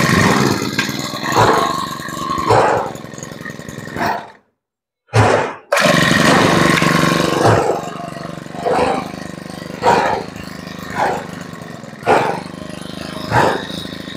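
Makita MEM264W four-stroke brush-cutter engine running and being revved in short throttle blips, roughly one a second. It cuts out about four seconds in, fires briefly a second later, and then runs and revs again.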